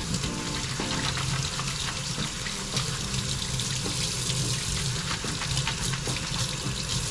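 Kitchen tap running hard into a stainless-steel sink, with a steady splashing hiss, as a mesh bag of okra is scrubbed by hand under the stream.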